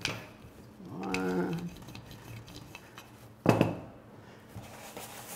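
Kitchen handling sounds on a stainless steel worktable: a wooden rolling pin working biscuit dough, with a single sharp metallic clack about three and a half seconds in as metal meets the steel top, then the metal biscuit cutter being pressed into the dough.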